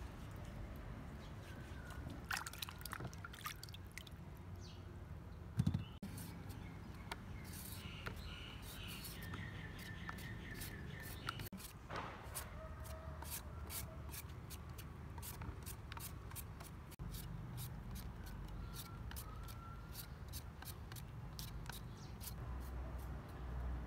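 Hand vegetable peeler scraping the skin off sweet potatoes, a series of short rasping strokes that comes about three a second in the second half.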